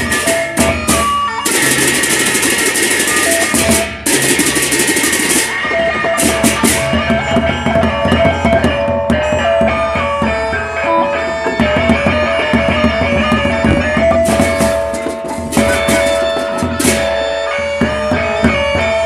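Sasak gendang beleq gamelan playing: two large barrel drums beaten with sticks under a held melodic line, with ceng-ceng cymbals clashing. The cymbal clashing swells loudly about two seconds in, again around fifteen seconds, and briefly near the end.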